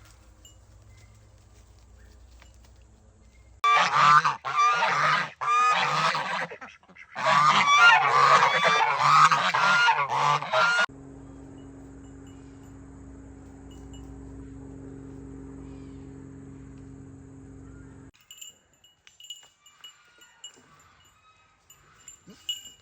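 Farm fowl honking loudly in rapid runs of calls for about seven seconds, then a steady low hum that cuts off suddenly.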